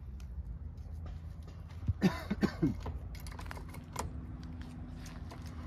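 Light clicks and clinks of an electric chainsaw's metal guide bar being handled and set onto the saw body, over a steady low hum. About two seconds in there is a brief, louder cluster of squeaky sounds that slide in pitch.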